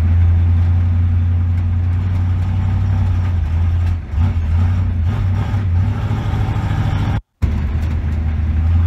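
Studebaker Champion heard from inside its cabin on the move: a steady low engine drone with road noise, easing off briefly about four seconds in. The sound cuts out completely for a split second near the end.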